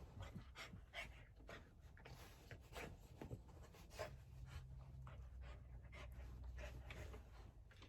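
Faint scratching and rustling of a Boston terrier pawing and nosing around a new fabric dog bed, in many short irregular scuffs.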